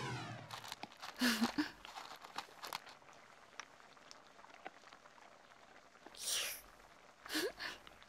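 Sparse light clicks and crunches of dry pet-food kibble, with a short squeaky chirp about a second in and another short rising squeak near the end.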